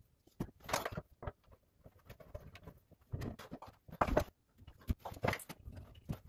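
Hands fitting a rain shower head onto its wall arm and connecting the handheld shower wand and hose: scattered light clicks, knocks and rubbing of metal and plastic fittings at irregular intervals, the loudest knock about four seconds in.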